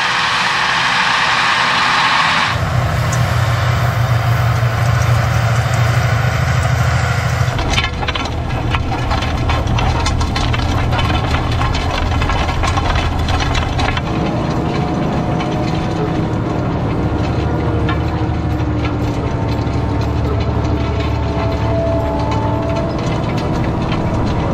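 Fendt Vario 936 tractor's diesel engine running steadily under load while pulling a 10 m Bednar Swifterdisc disc cultivator. In the middle stretch there is dense clicking and rattling as the discs cut through soil and stones. The sound changes abruptly a few times.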